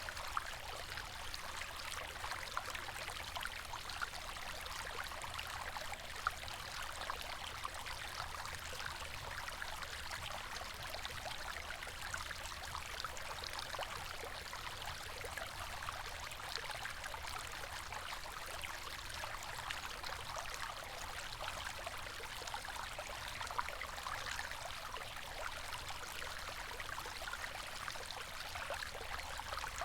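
River water flowing steadily over stones, a continuous babbling rush with many small splashes and trickles.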